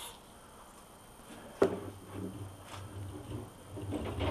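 A short spray of WD-40 at the very start, then a sharp metal knock about a second and a half in, followed by the uneven rumble and clatter of a new bench vise's sliding jaw and screw being worked by its handle after lubrication.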